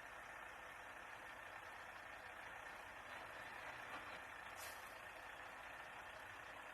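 Faint, steady running of a distant heavy-vehicle engine.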